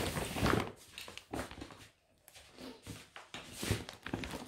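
Shopping bag rustling and crinkling in irregular bursts as items are pulled out of it, with a louder handling bump at the start.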